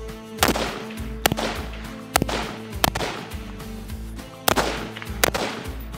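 Six AR-15 rifle shots, roughly a second apart with a longer gap after the fourth, each followed by a short echo, over background music.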